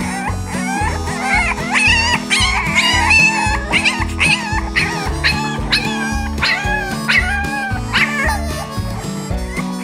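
French bulldog puppies barking in a rapid series of short, high calls, over background music with a steady beat.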